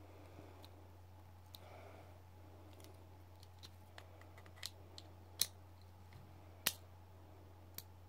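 Small metallic clicks from a cuff key turning in the keyhole of ASP handcuffs, working the lock and double lock. About nine clicks come at irregular intervals, the loudest two in the second half.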